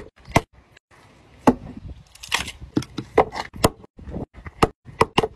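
Splitting maul with a new ash handle striking and splitting firewood on a chopping block: a dozen or so sharp, irregular wooden knocks and cracks as the logs are split and the pieces are handled.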